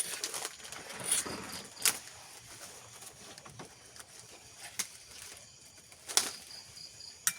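A handful of sharp, isolated clicks or taps, about five spread over several seconds, over a faint background.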